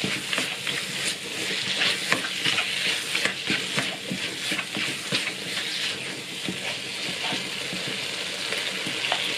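Onions and tomatoes frying in a pan, sizzling steadily while a spatula stirs them, with frequent short scrapes and taps of the spatula against the pan.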